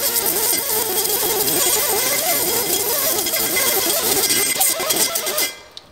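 Pneumatic die grinder with a 36-grit Roloc abrasive disc scouring rust off a steel brake rotor's hat face, a hissing whir whose pitch wavers as the disc is pressed on the metal. It stops suddenly about five and a half seconds in.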